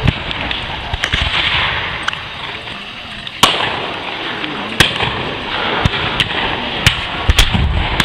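Scattered black-powder blank gunfire from reenactors' pistols and muskets: about a dozen shots at irregular intervals, some faint and some close and sharp, the loudest about three and a half seconds in, over a steady rushing noise.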